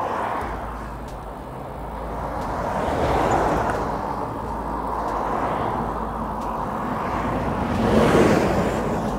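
Road traffic passing a cyclist: a steady rush of tyre and engine noise that swells as one vehicle goes by about three seconds in, and as a louder one goes by near the end.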